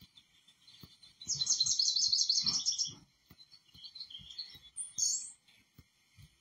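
Birdsong from a bird-watching video played through small desktop speakers: a fast, high trill of rapidly repeated notes lasting about a second and a half, then a few scattered chirps and a short, high call about five seconds in.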